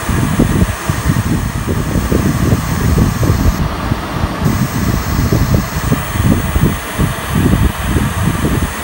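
Analogue TV static sound effect: a loud, steady hiss with a rough, fluttering low end.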